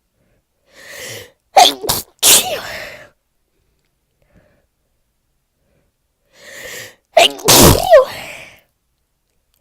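A person with a heavy cold sneezing twice, about five and a half seconds apart; each sneeze is preceded by a quick breathy intake of breath. The congestion and stuffiness come from a cold or flu.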